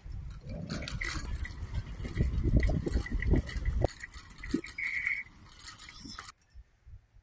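Small loose metal parts rattling and clinking unevenly, over a heavy low rumble in the first half. The sound cuts off abruptly about six seconds in.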